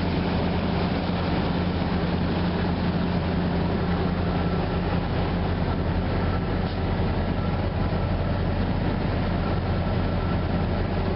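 Boat's engine running at a steady speed, an even low drone with no change in pitch.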